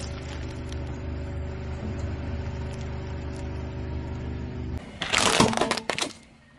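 Car engine idling with a steady hum and a few faint crackles. About five seconds in it cuts off abruptly and a loud crackling, rustling noise takes over for about a second and a half, then drops away.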